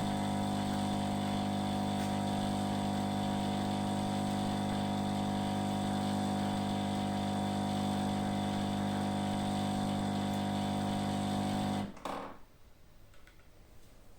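A machine's steady electric hum, even and unchanging, that cuts off suddenly near the end, leaving a few faint ticks.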